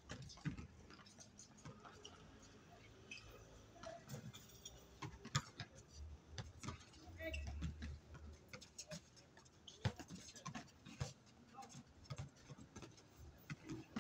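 Outdoor basketball game: scattered sharp thuds of the ball bouncing and players moving on the hard court, at irregular times, with players' voices in the distance.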